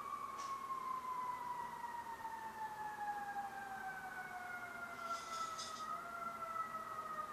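A siren sounding one long tone that falls slowly and steadily in pitch. A brief high fluttering chirp comes about five seconds in.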